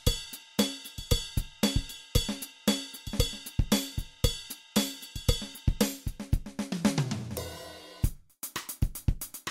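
Background music with a drum-kit beat of cymbals, hi-hat and drums, steady and rhythmic. About seven seconds in, a falling sweep leads into a short break before the beat comes back.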